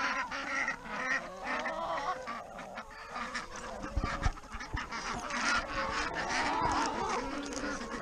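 A mixed flock of chickens and Indian runner ducks calling over one another, clucks and quacks overlapping as the birds crowd in to feed. A few dull knocks sound about four seconds in.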